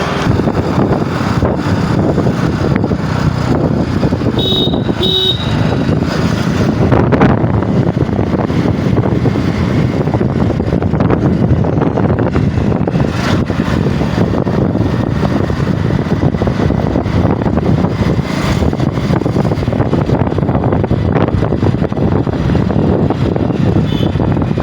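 Road traffic: vehicles running with steady engine and road noise, and two short horn toots about four and a half seconds in.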